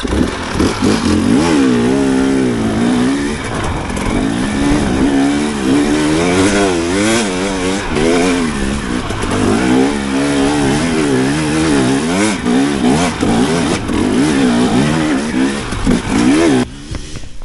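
Dirt bike engine being ridden, the revs rising and falling again and again through throttle changes, over a steady rushing noise.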